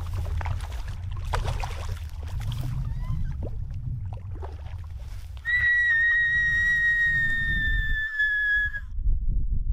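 Wind rumbling on the microphone and water splashing as a hooked lake trout is grabbed by hand at the water's edge; then, about halfway through, a woman lets out a long high-pitched squeal of excitement, held steady and sliding down very slightly for about three seconds before cutting off.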